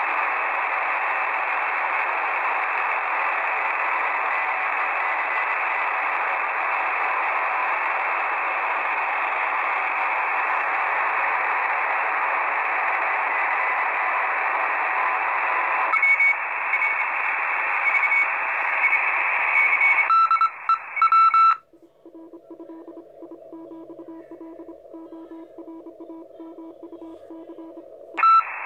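Shortwave receiver audio in lower sideband on the 40-metre amateur band: steady static hiss, with a thin tone coming in a little past halfway as the receiver is retuned. From about three quarters of the way through, the hiss drops away and a keyed Morse code tone beeps, until the hiss comes back at the very end.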